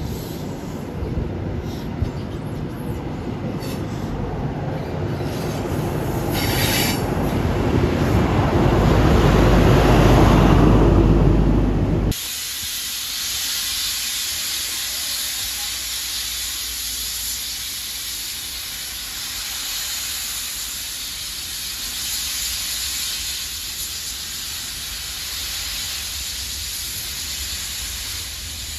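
A Pullman charter train passing, its rumble growing louder for about ten seconds. Then, after a sudden cut, a steam locomotive hisses steadily as it blows steam from around its cylinders while starting off.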